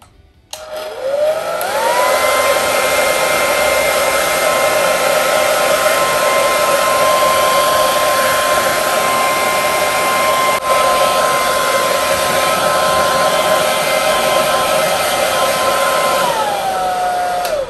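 Handheld hair dryer switched on, its motor whine rising to a steady pitch over the rush of blowing air as it dries long hair. It runs steadily, then winds down near the end as it is switched off.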